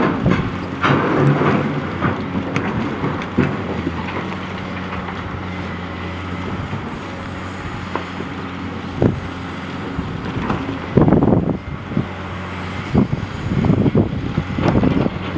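Distant diesel engine of a Caterpillar 980K wheel loader running steadily as it drives. Gusts of wind buffet the microphone several times, strongest about eleven seconds in.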